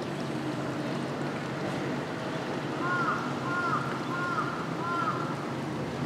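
Steady outdoor background noise, a constant even hiss. Near the middle come four short, evenly spaced high notes, each one arched in pitch.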